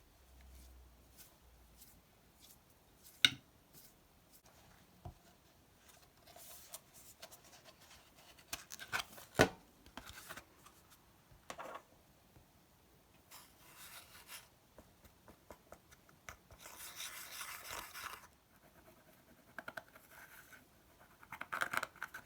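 Makeup being scraped and broken up and worked into slime: scattered sharp clicks and taps, two loud ones about three and nine seconds in, with scratchy scraping and rubbing stretches later on.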